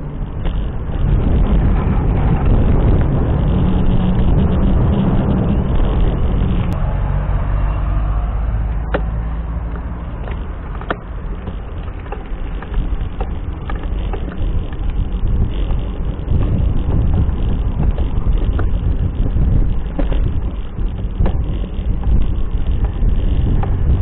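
Wind rumbling on the microphone of a moving bicycle, with road traffic that is stronger in the first several seconds as a car passes. There are two sharp knocks near the middle.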